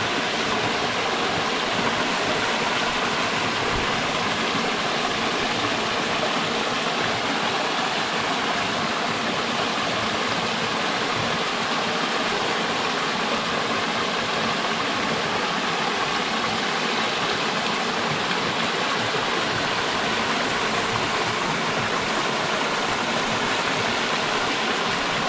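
Small stream running steadily over its bed, a constant rush of water.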